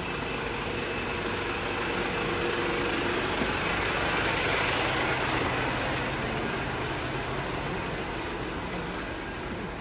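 Diesel engines of queued heavy trucks idling, a steady low hum, with a broad rush of traffic noise that swells to its loudest about halfway through and then eases.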